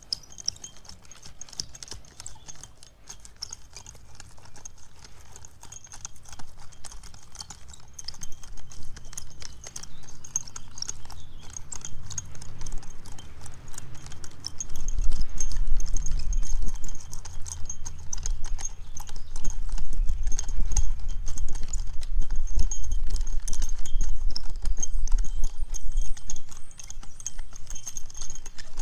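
Garden Weasel rotary cultivator's metal star tines clattering and scraping as the tool is rolled back and forth through loose topsoil, working grass seed into a bare patch. The rattling runs as a steady stream of clicks, with a low rumble that gets louder about halfway through.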